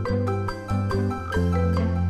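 Background instrumental music with a sustained bass line and a string of short struck notes.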